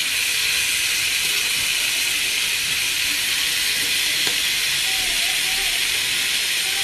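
Marinated ribs sizzling steadily on a hot Happy Call grill pan, the sauce frying against the grill surface, with a faint click of metal tongs about four seconds in.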